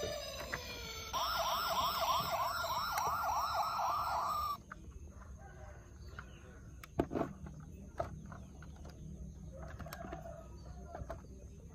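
Electronic toy police siren: a falling tone, then a fast warbling wail, about three or four swoops a second, that cuts off suddenly a little under five seconds in. After it, only light scattered clicks and knocks.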